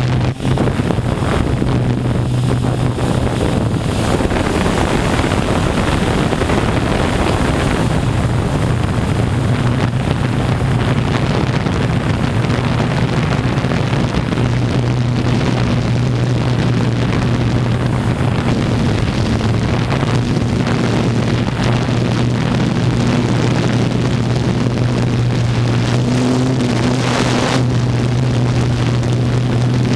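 Multirotor drone's electric motors and propellers running, heard from the camera on board in flight: a loud, steady low hum, with wind rushing over the microphone.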